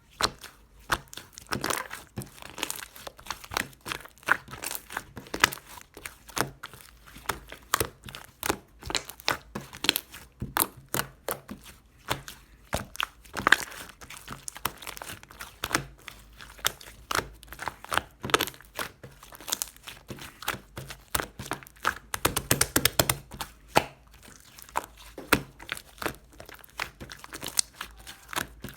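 Clay-mixed slime being squeezed, poked and stretched by hand: a steady run of sharp clicks, pops and crackles, with a denser stretch of crackling about three-quarters of the way through.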